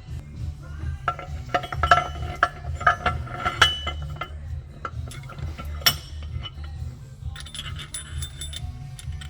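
Metal parts clinking against each other in a run of sharp strikes, some with short ringing tones, clustered in the first few seconds. Background music with a steady low beat plays underneath.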